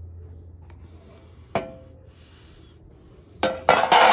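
Thin sheet-steel body repair panel being handled: a single light metallic tap with a short ring about a second and a half in, then a loud ringing clatter of metal near the end.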